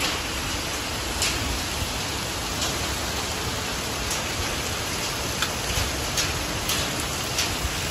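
Heavy rain pouring onto a grass lawn and driveway: a steady hiss with scattered sharper ticks of single drops striking close by.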